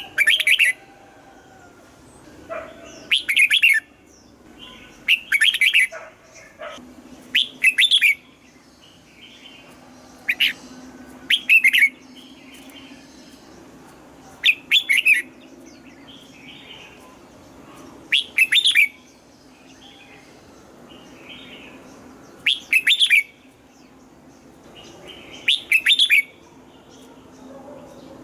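Red-whiskered bulbul singing short, loud whistled song phrases, one every two to four seconds, over a faint steady low hum.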